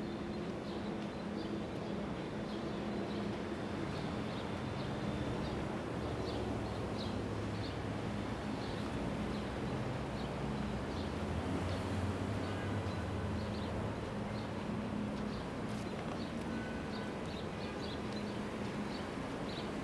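City street ambience: a steady low hum of traffic and engines, with light, even footsteps at walking pace, about one and a half steps a second.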